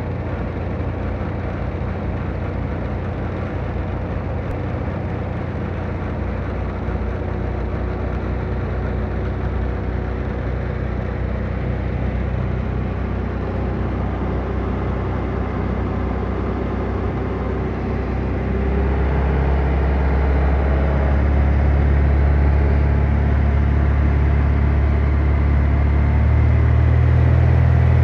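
Jabiru light aircraft's piston engine and propeller droning steadily, heard from inside the cockpit. The low drone grows louder about two-thirds of the way through and again near the end.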